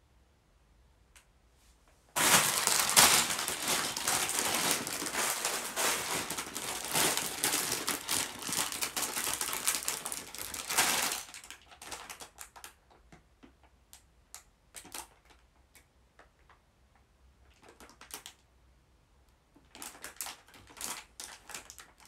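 A clear plastic bag of small plastic parts being handled: crinkling with the pieces clicking and rattling inside. It starts about two seconds in and goes on for about nine seconds, then comes in scattered crinkles, with a short lull before more handling near the end.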